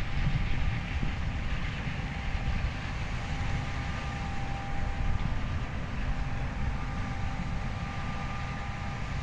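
Combine harvester running steadily while harvesting corn: a continuous mechanical rumble with a faint steady whine over it.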